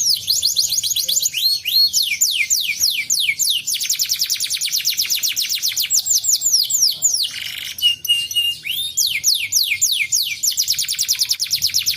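Canary singing in fast trills of repeated falling whistled notes. A little past halfway the trill breaks for a short rasp and a brief held note, then resumes.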